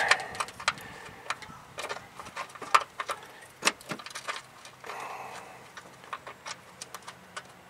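Scattered light metallic clicks and taps as a bolt is fitted and started by hand into an engine mount, with a brief softer rustle about five seconds in.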